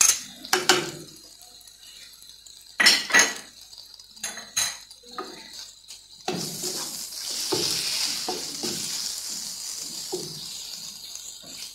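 A spoon clinks and taps against a ceramic bowl as seasoning is scraped into the pan. About six seconds in, a steady sizzle of chicken-breast strips frying in butter and oil starts, with a wooden spatula stirring and scraping the frying pan.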